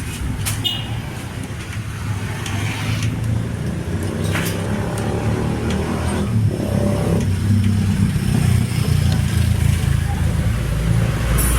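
Steady low rumble of a motor vehicle engine running, with a few sharp clicks.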